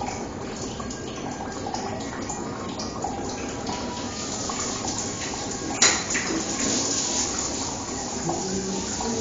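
Water running in a bathroom. A sharp knock comes a little before six seconds in, and after it the rush of water is louder and brighter.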